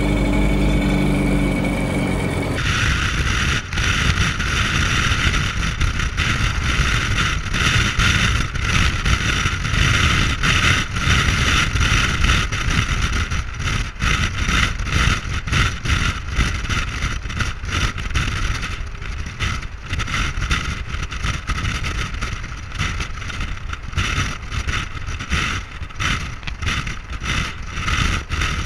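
A steady engine hum cuts off about two and a half seconds in. It gives way to wind buffeting the microphone of a camera mounted on a Chevrolet D-Max pickup, with road and tyre rumble from the truck moving at speed.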